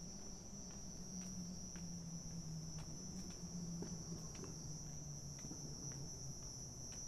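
Chorus of crickets or similar night insects: a steady, unbroken high-pitched drone. Under it are faint footstep ticks about twice a second at a walking pace, and a low hum.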